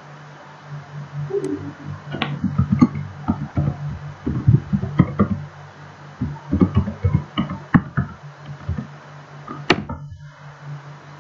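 Typing on a computer keyboard: irregular key clicks over several seconds, then a single sharper click near the end, over a steady low hum.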